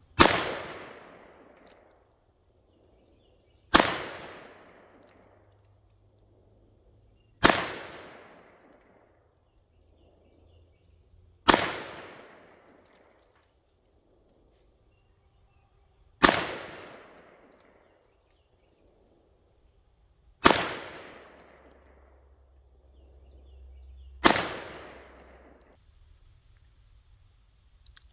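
Seven shots from a Smith & Wesson 686 Plus .357 Magnum revolver, fired slowly and evenly about four seconds apart, each crack dying away in an echo over a second or two. The rounds are maximum-charge hand loads with 158-grain Hornady hollow-point bullets.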